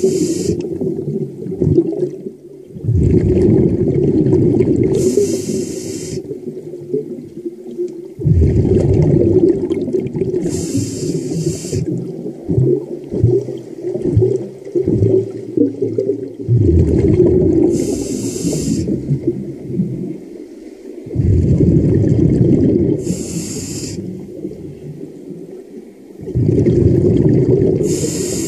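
Scuba diver breathing underwater through a regulator: a short hiss on each inhale, then a long burbling rush of exhaled bubbles. The cycle repeats about every five to six seconds, five or six breaths in all.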